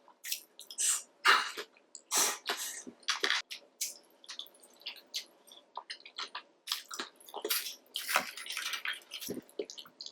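Close-miked wet eating sounds: irregular smacking, squelching and chewing of sauce-coated seafood, with many small clicks.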